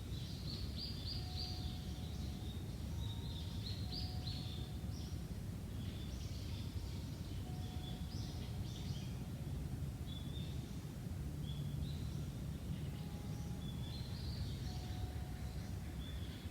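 Small birds chirping and giving short trills again and again, over a steady low rumble of background noise.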